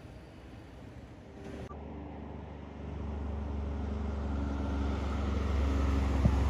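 Heavy diesel truck-and-dog tipper driving past close by: a low steady engine note with tyre noise on the road, growing louder from about three seconds in as the truck nears. Before that, a fainter passing semi-trailer tipper, and a few sharp clicks near the end.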